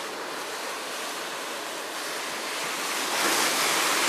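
Sea waves washing and breaking against the concrete tetrapods of a breakwater, the surf swelling louder about three seconds in.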